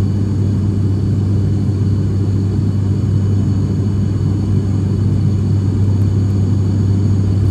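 Cabin noise of a Buddha Air turboprop airliner in flight: a loud, steady low drone of the engines and propellers with a constant deep hum.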